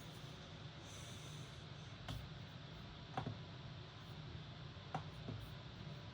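A few short, faint clicks, about four spread over several seconds, over a steady low hum and hiss of room noise.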